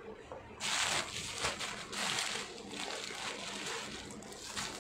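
Cloth of a mekhela chador rustling as it is handled right against the phone's microphone. The hissing rustle starts about half a second in and comes in several uneven surges.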